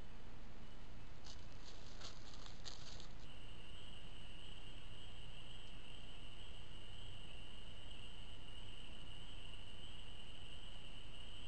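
Trail-camera microphone hiss with a continuous, high-pitched night chorus of calling animals that starts about three seconds in, at a cut between clips. A few short scratchy rustles come just before it.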